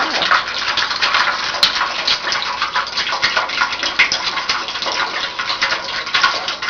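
A thin stream of water pouring steadily from a crushed aluminum soda can into a shallow metal pan, splashing. The water being drained was sucked into the can when it imploded.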